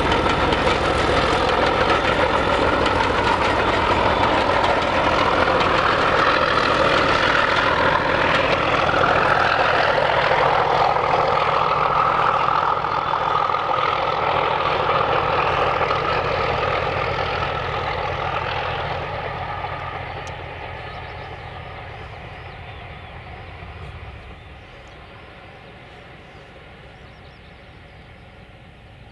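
Class 31 diesel-electric locomotive 31466 under full power hauling a passenger train, its engine loud as it goes by, then fading steadily away into the distance over the last ten seconds.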